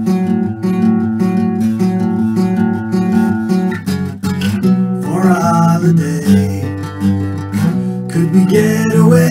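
Acoustic guitar strummed in a steady, repeating chord pattern, an instrumental passage of a song; about halfway through, a gliding melodic line joins it.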